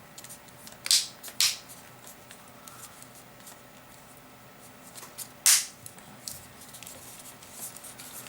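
Small plastic phone parts being handled and pressed into place by hand: light clicks and ticks, with three short, louder scrapes, two close together about a second in and one past the middle.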